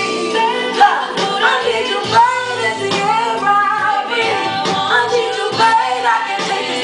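Woman singing live in a soulful R&B style, wordless runs bending up and down in pitch, over steady held chords underneath.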